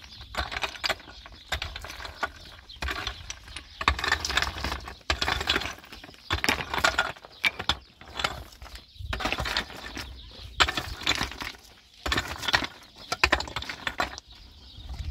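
Repeated scraping strokes of hand work, about one a second and each up to a second long, with sharp cracks among them.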